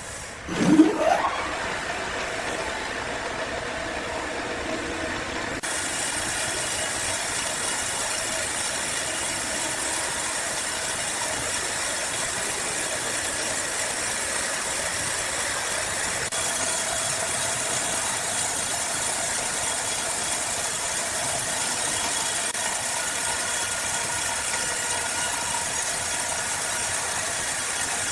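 Sawmill machinery starting up with a quick rising whine, then running steadily with a rattle; it grows louder and brighter about six seconds in.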